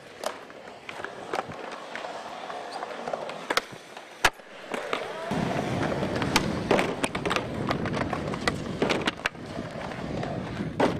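Skateboard wheels rolling on concrete with repeated sharp clacks of boards hitting the ground; from about five seconds in the rolling rumble is closer and louder.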